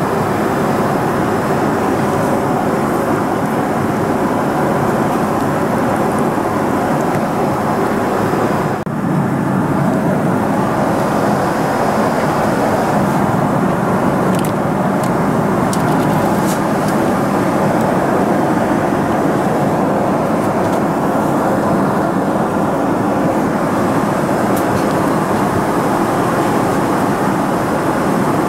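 Steady cabin noise of a Boeing 777-300ER in flight: an even, loud rush of airflow and engines, briefly dipping about nine seconds in.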